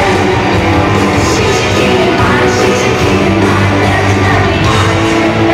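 Live pop-rock band music played loud in an arena, heard from the audience: electric guitars and drums with singing.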